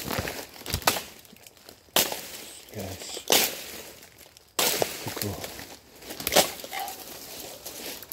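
Footsteps crunching through dry leaf litter and snapping dead sticks and stalks, in irregular bursts of crackling and snaps, with a short lull about four seconds in.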